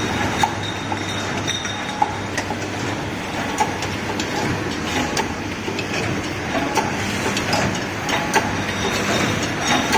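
Servo-driven glass bottle screen printing machine running: a steady mechanical hum with irregular short clicks and knocks throughout.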